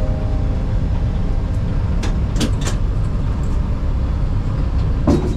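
Steady low rumble of a moving vehicle heard from inside, with a few short clicks or knocks about two seconds in and again near the end.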